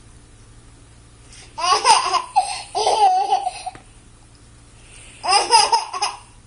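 High-pitched laughter in two bouts, the second shorter.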